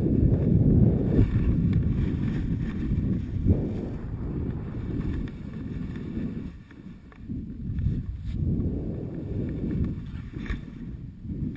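Wind buffeting an action camera's microphone during a fast descent on snow, with a low rushing scrape of sliding over snow that swells and fades with the turns. A couple of short knocks stand out, one about three and a half seconds in and one near the end.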